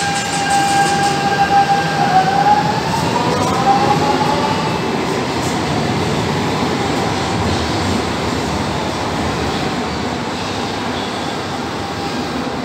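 Lisbon Metro electric train pulling out of the station: a steady electric whine that glides upward in pitch from about two seconds in as the train accelerates, over a steady rumble of the running train that eases off slightly near the end.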